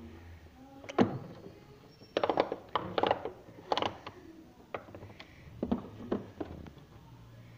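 Bubbles of a silicone pop-it fidget toy being pushed in by fingers, each giving a short sharp pop: single pops about a second in and near the end, and quick runs of several pops around two to four seconds in.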